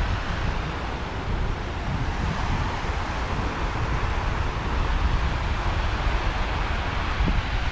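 Wind buffeting the microphone in a gusty low rumble, over the steady hiss of small waves breaking on a sandy beach.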